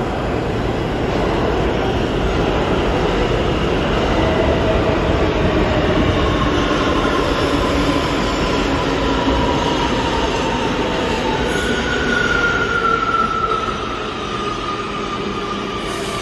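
New York City subway train running on the track through an underground station: a loud steady rumble of wheels on rail that swells and then eases a little near the end. Thin wheel squeals glide slowly downward in pitch through the second half.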